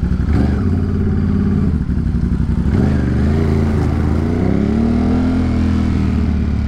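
2022 Ducati Monster's V-twin engine running as the bike rides through city traffic, through an aftermarket Mivv exhaust with the dB killer taken out. The revs climb about four seconds in and ease off again near the end.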